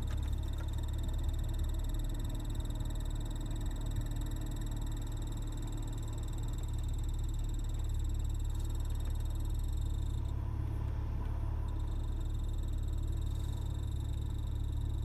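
A BMW E46's air-conditioning system making an odd, steady low-pitched noise, with a faint high whine that drops out briefly just past the middle; the owner does not know the cause.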